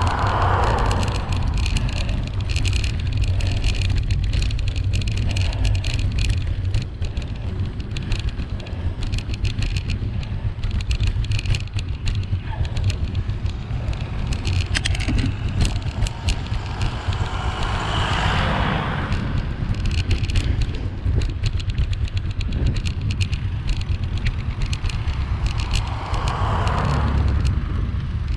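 Bicycle ridden over paving: a steady low rumble of wind on the bike-mounted microphone with frequent rattles and clicks from the bike and mount. Cars pass three times, right at the start, about two-thirds through and near the end.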